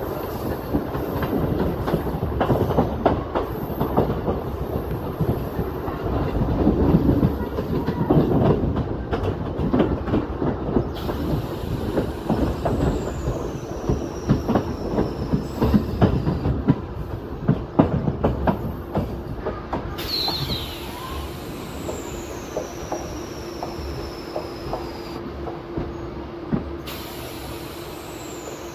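MEMU electric train running, heard from an open carriage doorway: wheels clattering over rail joints and points, with wheel squeal on the curving track. The clatter is densest for the first two-thirds, then thins out to a steadier running hum near the end.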